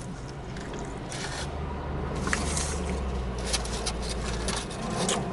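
Eating sounds from a Philly cheesesteak sandwich: wet chewing and squishing, with irregular crackles and small scrapes as the sandwich is handled. A low steady rumble runs underneath.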